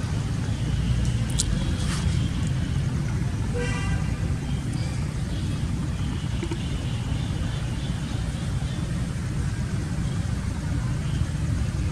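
Steady low rumble, with a short pitched toot about four seconds in and a brief sharp click shortly after the start.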